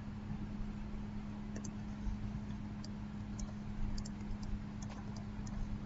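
A handful of scattered computer mouse clicks, short and sharp, mostly in the second half, over a steady low electrical hum.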